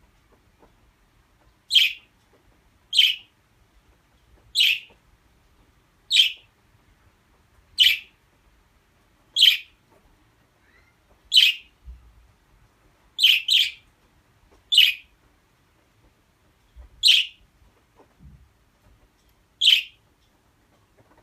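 Budgerigar giving short, sharp chirping calls, about a dozen, one every one to two seconds, with two coming close together about halfway through.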